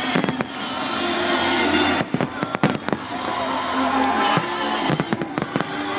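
Fireworks display: many bangs and crackling bursts one after another, with music playing and crowd voices underneath.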